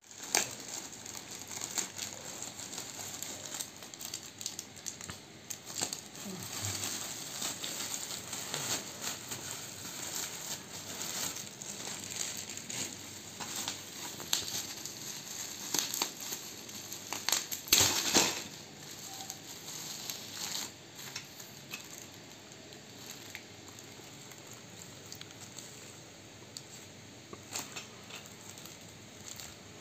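Thin plastic bag and bubble wrap crinkling and rustling as they are unwrapped by hand, with many small crackles. The loudest crackling comes a little past the middle; the last third is quieter handling.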